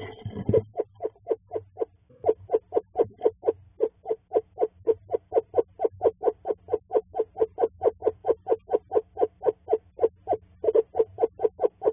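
Eastern screech owl giving its monotone trill, a long, even run of short hoots at one steady pitch, about five a second, as a courting call. A brief rustle of the owl moving in the box comes at the very start, and the trill stops briefly about two seconds in before running on.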